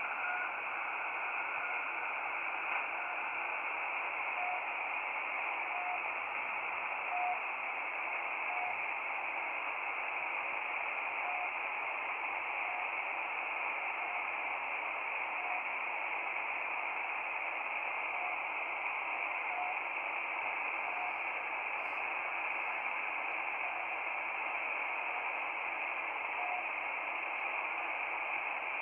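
Tecsun PL-330 shortwave receiver in upper sideband on 3756 kHz, playing 'The Pip', a Russian military channel-marker station: short beeps about every second and a half over steady static hiss.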